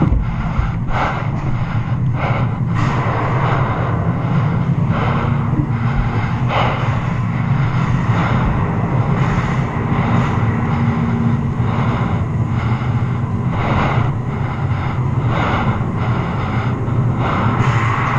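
A steady low hum, with a player's breathing coming through about once every second or so.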